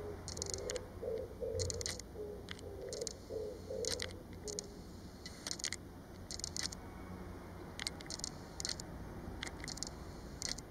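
Oriental turtle dove cooing, a low repeated phrase of about two notes a second that stops about four and a half seconds in. Short, sharp high ticks come in small clusters throughout.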